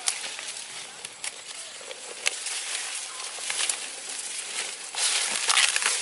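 Dry maize husks and leaves crackling and tearing as an ear of corn is picked and husked by hand, with several sharp snaps. The crackling grows denser and louder about five seconds in.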